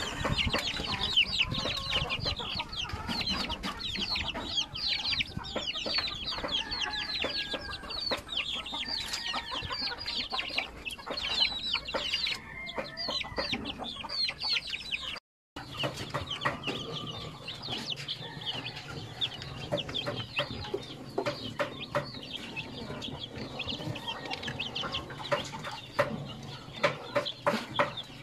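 A flock of young chickens peeping constantly, a dense stream of short, falling chirps. After a cut about halfway through, the peeping is sparser and a low steady hum sits behind it.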